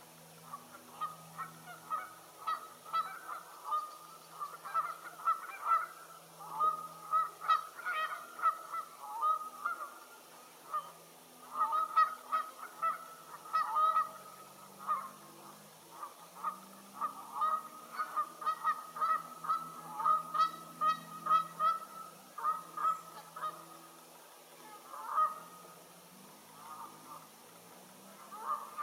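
A flock of Canada geese honking: many short overlapping calls, thick for most of the stretch and thinning out over the last few seconds.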